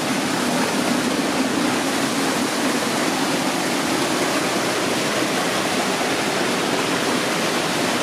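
Steady rush of a mountain creek's water pouring over rocks in small cascades into natural pools.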